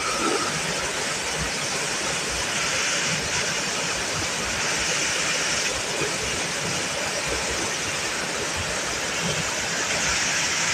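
Waterfall: a steady rush of water falling from a high cliff into a pool.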